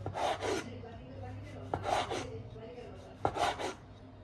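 Three rasping scrapes against a hard surface, about a second and a half apart, each starting with a sharp tap, over a faint low hum.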